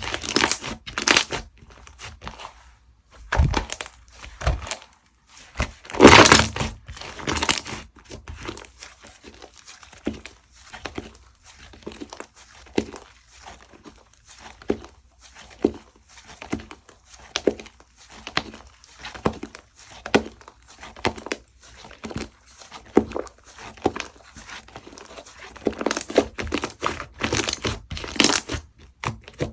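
Hands squeezing, stretching and folding slime, making a quick, irregular run of small sticky clicks and pops, with louder bursts about six seconds in and again near the end.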